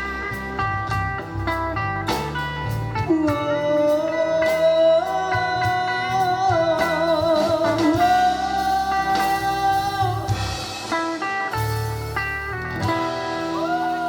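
Live band playing the instrumental ending of a Malay pop ballad: a lead guitar plays long, bent, wavering notes over the band's accompaniment.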